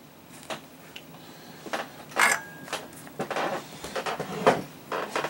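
Irregular clicks, taps and rustles of solder and tools being picked up and handled at a workbench, about eight in all, the loudest a little over two seconds in.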